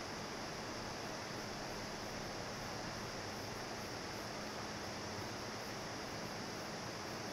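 Steady, even hiss of the recording's background noise, with a faint low hum underneath.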